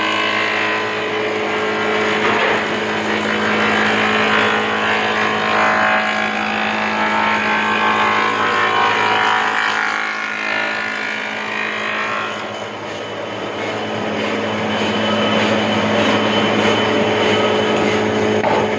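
Combination wood planer-thicknesser running with a steady motor hum and a loud rushing cutting noise, as a wooden board is fed through its cutter head.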